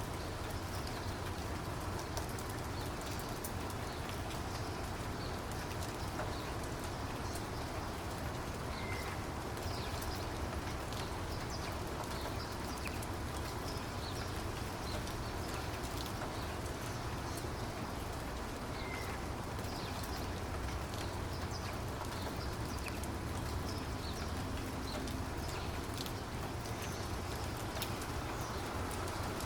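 Steady rain falling, an even hiss dotted with many separate drop ticks, with a few short high chirps about ten seconds apart.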